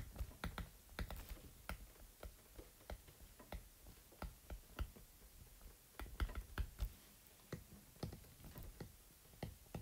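A stylus tip tapping and clicking on a tablet's glass screen while handwriting. It makes faint, irregular clicks, a few each second, with brief pauses between them.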